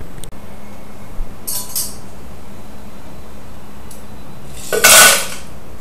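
Cocktail-making clinks of ice and bar tools against glass and metal: a short clatter about a second and a half in, then a much louder rattle of ice near the end.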